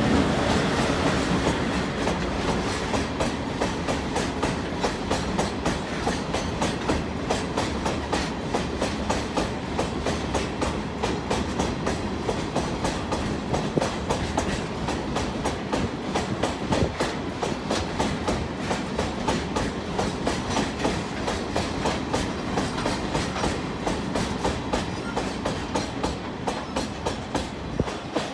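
Freight train hauled by electric locomotive Deki 105 rolling past, its wagons' wheels clacking rapidly and evenly over the rail joints. The sound is loudest at the start and eases off a little toward the end.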